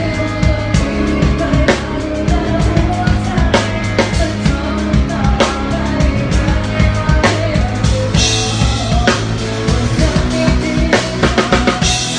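Drum kit played by a band drummer, heard close up behind the kit: a steady beat of kick and snare over the band's bass and other instruments. A cymbal crash rings out about eight seconds in, and again near the end.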